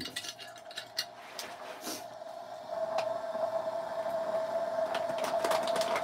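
Light clicks and clinks of coffee brewing gear being handled on a table. From about two and a half seconds in, a steady even tone sets in and slowly grows louder.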